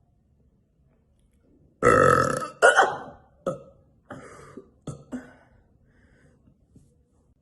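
A woman burping loudly. A long belch starts about two seconds in and runs straight into a second one, followed by several shorter, fainter burps.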